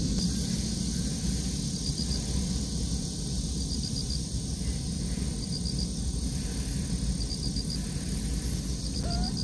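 An insect chirps in short trains of about four pulses, repeating roughly every two seconds, over a steady low background rumble. A cat gives a short rising mew near the end.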